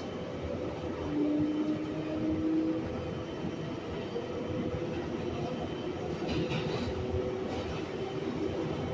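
R142A subway car running between stations: a steady rumble of the moving train, with a short low whine about a second in.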